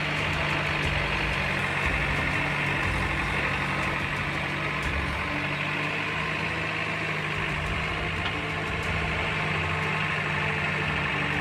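Diesel engine of a backhoe loader running steadily with an even hum while its arm digs into landslide mud and debris.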